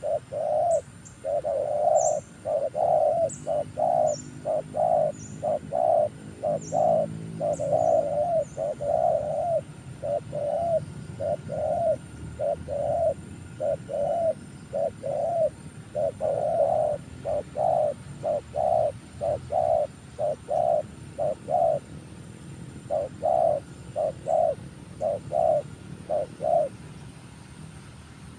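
Spotted dove cooing in rapid runs of about two coos a second, with a short break a little past the middle, stopping a couple of seconds before the end. Thin, high chirps from a small bird come in over the first several seconds.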